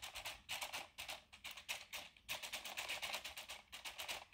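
WowWee CHiP robot dog giving off fast, even clicking in short runs broken by brief gaps, while it behaves oddly.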